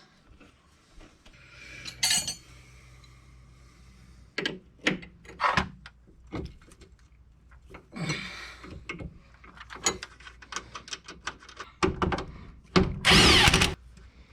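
Tools at work fitting a new sway bar end link: scattered metal clicks and knocks, with a loud burst of about a second from a power tool near the end.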